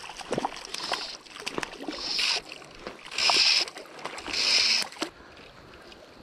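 A hooked trout splashing at the surface. Fly line is pulled in three short zipping hisses about a second apart.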